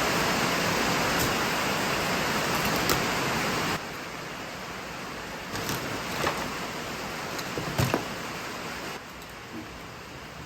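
Rain falling, a steady hiss that drops sharply in level about four seconds in and again near the end, with a few scattered knocks and taps.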